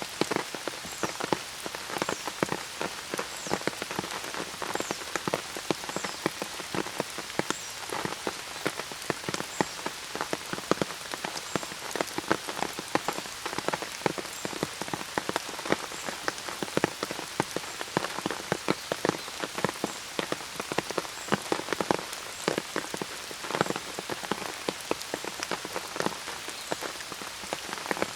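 Steady rain, with many large drops tapping irregularly and densely on an umbrella overhead.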